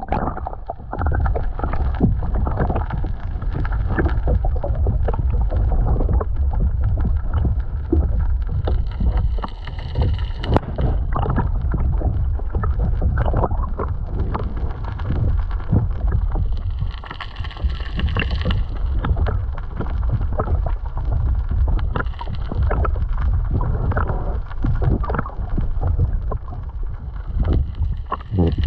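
Water sloshing and splashing around a stand-up paddleboard, with many short knocks and splashes, over a steady low rumble of wind on the microphone.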